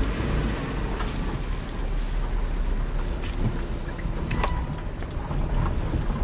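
Suzuki Escudo heard from inside the cabin while being driven slowly: a steady low engine and road rumble, with a few light clicks in the middle.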